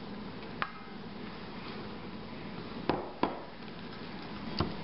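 Wooden spoon stirring cornstarch and water in a stainless steel bowl, knocking sharply against the bowl four times, two of them close together about three seconds in.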